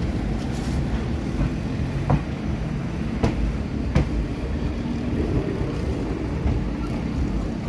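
Passenger train coach running on the rails, heard from the open door: a steady low rumble broken by three sharp clicks in the middle of the stretch.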